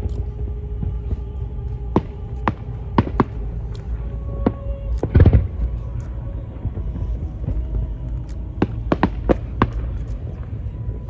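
Aerial fireworks bursting: scattered sharp bangs over a steady low rumble. The loudest boom comes about five seconds in, and a quick run of four or five bangs follows near the end.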